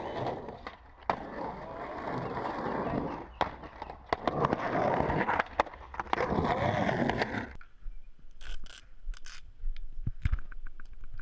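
Skateboard wheels rolling over rough concrete, with grinding scrapes and sharp clacks of the board striking the concrete. About seven and a half seconds in the rolling stops, leaving only a few scattered clicks.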